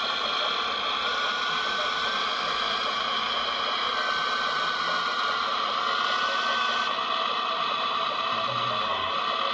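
Hydraulic pump of a radio-controlled excavator whining steadily over a hiss as the grapple works a rock, its pitch wavering slightly up and down with the load.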